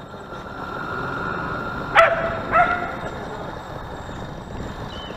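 A dog barks twice, about half a second apart, over the steady noise of the model lifeboat running through the water.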